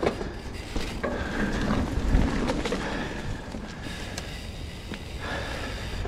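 2023 Trek Roscoe 9 hardtail mountain bike riding down a dirt singletrack: tyres rolling over the dirt with a steady low rumble, and the bike knocking and rattling over bumps several times.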